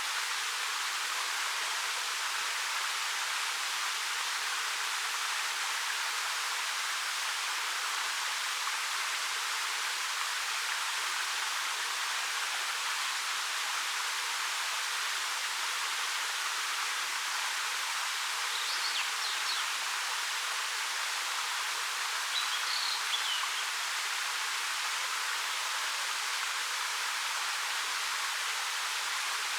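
Steady, even rushing of a 13 m waterfall pouring down black rock. Two brief high chirps break through, one a little past the middle and one a few seconds later.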